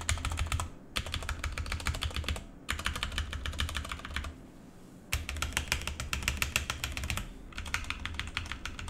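Keys of a Vortex VX5 Pro mechanical keyboard with stock Outemu Brown tactile switches being typed on rapidly, in about five bursts of one to two seconds separated by short pauses.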